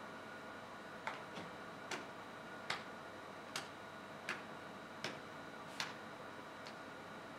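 Sharp clicks in a steady rhythm, about one every three-quarters of a second, starting about a second in, over a faint steady hiss.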